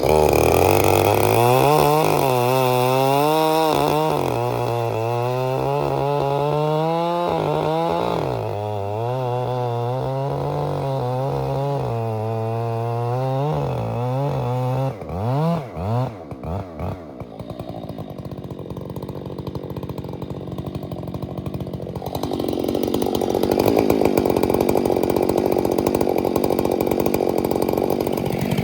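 Husqvarna 592 chainsaw running, its engine pitch rising and falling with the throttle for the first half, then a steadier, noisier running in the last several seconds as it cuts into the wood.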